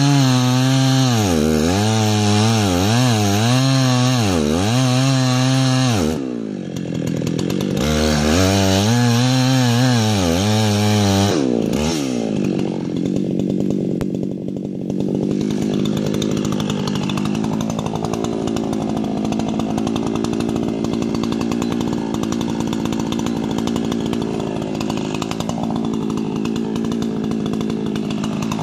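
Chainsaw cutting into a large dead ponderosa pine, its engine speed dipping and recovering under load. It eases off about six seconds in, cuts again, then from about twelve seconds on runs steadily at a lower speed.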